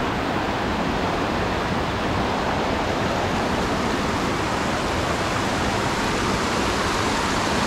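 A small waterfall and rocky stream rushing steadily over boulders. The stream is running high after heavy monsoon rain.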